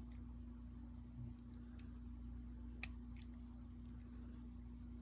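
Faint, scattered metallic clicks of a half-diamond pick lifting and setting the sliders of an OnGuard slider lock, one sharper click a little past the middle, over a steady low hum.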